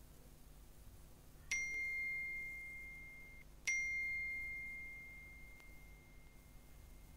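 Two clear dings about two seconds apart. Each is a single high ringing tone that starts sharply and fades over a couple of seconds.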